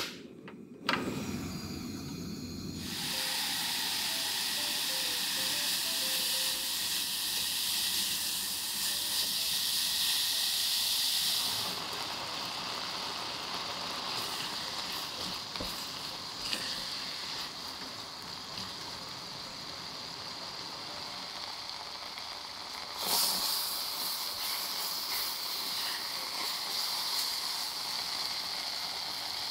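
A sharp click as the stove knob is turned on. Then a steady hissing sizzle of diced apples and sugar cooking down in their juice in a saucepan, quieter after about 11 seconds and swelling again about 23 seconds in.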